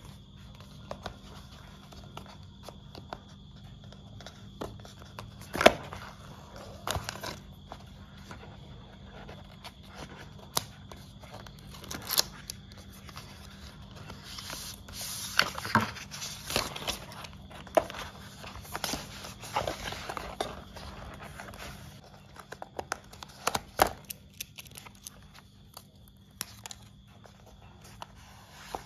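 Paper-and-cardboard packaging of an Apple Watch SE box being handled: scattered taps and clicks, with a longer stretch of paper rustling and scraping about halfway through, over a faint steady hum.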